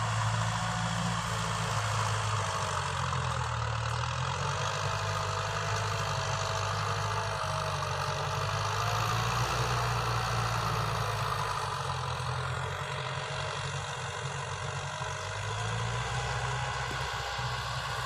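Kubota M6040 tractor's diesel engine running steadily under load while it pulls a rotary tiller through dry soil, with a faint wavering whine above the engine hum.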